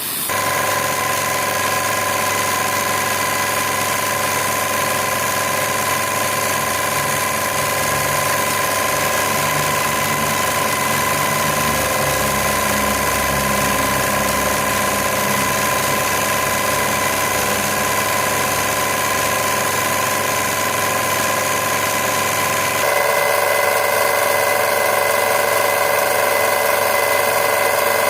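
Pressure washer's motor and pump running steadily with a constant hum. Near the end its tone shifts and gets a little louder.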